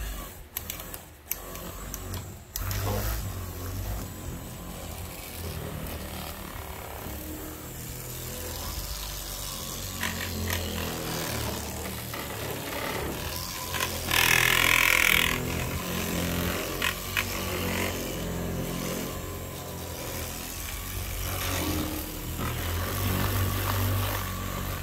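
Corded electric orbital polisher buffing the plastic fender of a lawn tractor: after a few handling clicks, the motor runs steadily from a couple of seconds in while the pad rubs over the surface. A louder hiss of about a second and a half comes midway.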